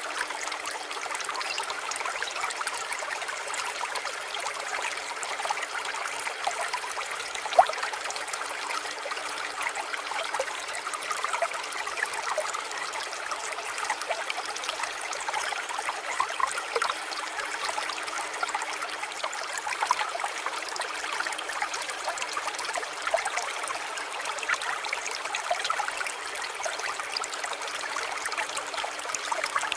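Water trickling and flowing steadily in a small garden stream, with many small splashes and one louder splash about seven and a half seconds in.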